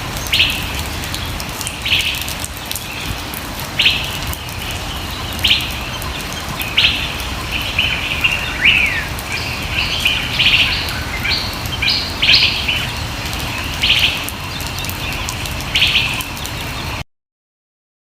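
Birds calling over a steady background hiss: a short call repeats about every one and a half to two seconds, with a busier run of calls and one falling note in the middle. The sound cuts off abruptly about a second before the end.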